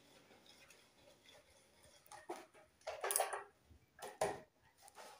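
A few scattered rustles and light knocks of handling and movement close to the microphone, starting about two seconds in, after a quiet start.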